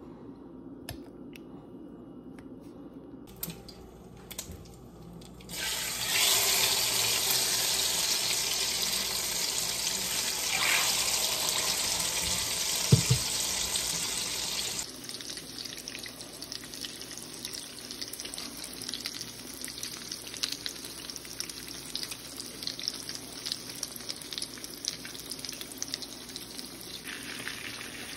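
A few faint clicks, then a kitchen tap running into the sink for about nine seconds, the loudest part. It cuts off abruptly, and then eggplant omelettes frying in shallow oil give a steady crackling sizzle.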